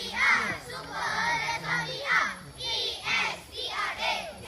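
Children singing in high voices, in short rhythmic phrases.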